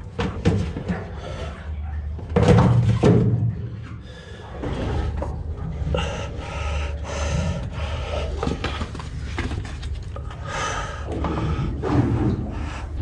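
A man panting and grunting with effort while twisting a rag-wrapped oil filter loose by hand on a Detroit Diesel Series 60 engine, with knocks of hand and metal and rag rustling, the loudest knock about two and a half seconds in. A steady low hum runs underneath.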